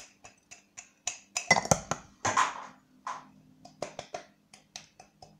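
Sugar being tapped and shaken out of a drinking glass into a mixing bowl: an irregular run of sharp clicks and taps, with a louder rush of pouring sugar about one and a half to two and a half seconds in.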